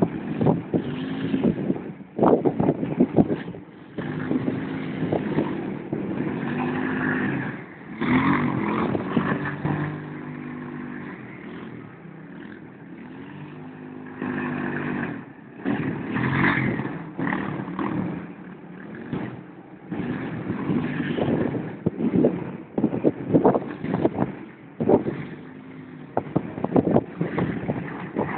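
Quad bike engine revving up and dropping back again and again as it is ridden hard, its pitch rising and falling. Short sharp crackles and knocks come through it.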